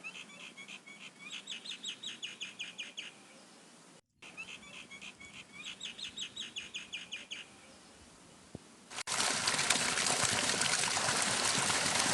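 A bird's fast trilled chirping, heard twice in the same pattern with a short silent cut between. About nine seconds in, it gives way abruptly to a loud, steady rushing noise full of small crackles.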